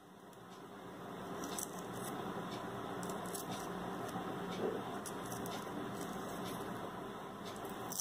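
Small red onion, soaked in water, having its skin peeled off with a knife: faint wet scraping and rustling with a few small ticks over a steady hiss. The sound fades in over the first second or two.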